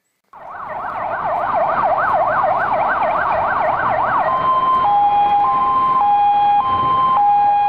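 Ambulance siren, starting abruptly with a fast rising-and-falling yelp of about three sweeps a second. A little over halfway through it switches to a two-tone hi-lo pattern, each tone held about half a second.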